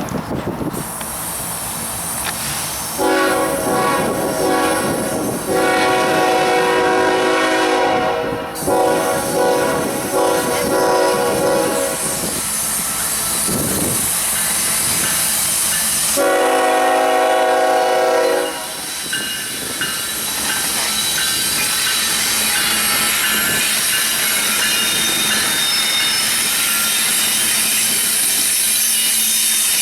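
Union Pacific manifest freight train sounding its horn in several long blasts, then its cars rolling past with a steady rumble and faint wheel squeal as it takes the diverging route.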